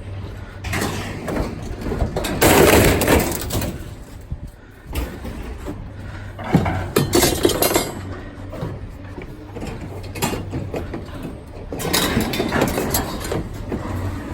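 Scrap metal clanking and scraping as it is unloaded off a pickup truck bed, in several loud bursts over a steady low hum.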